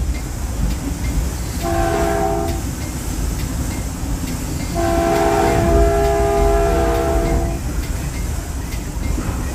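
Caltrain horn sounding a chord of several notes: a short blast about two seconds in, then a long blast of nearly three seconds, over the low rumble of the train running on the rails.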